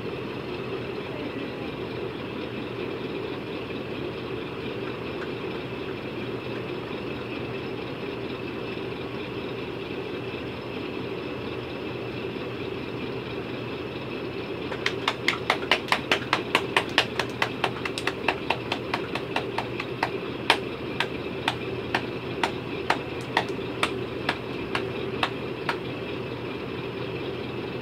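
A run of sharp hand claps starting about halfway through, quick at first at about five a second, then slower and irregular, over a steady background hum.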